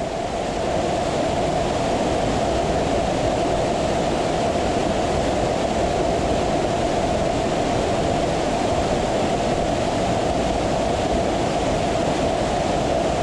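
Waterfall rushing close by, a loud, steady roar of falling water that swells up over the first second and then holds even.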